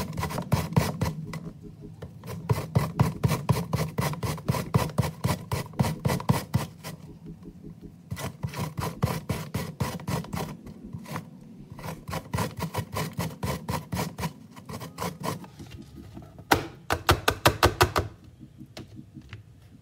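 An apple being grated on a metal grater: rapid, repeated rasping strokes, several a second, with a few short pauses and a louder run of strokes near the end.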